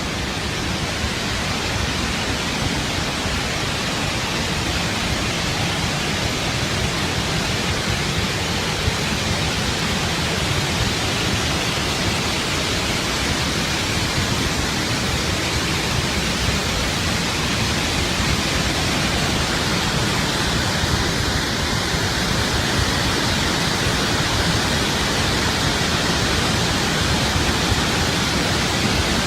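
Water rushing through an opened dam spillway gate: a steady, even rush of falling water.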